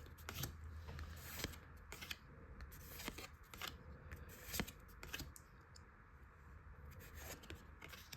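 Pokémon trading cards being handled and slid one past another as a pack is looked through, giving soft scattered flicks and rustles.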